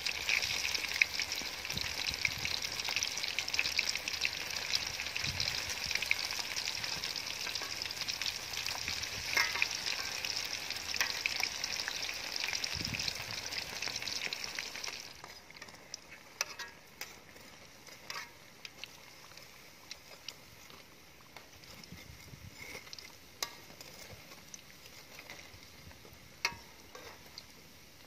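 Hot oil sizzling in a metal wok as shrimp-topped slices deep-fry, loud and steady at first. About halfway through it drops sharply to a faint crackle with scattered clicks and pops.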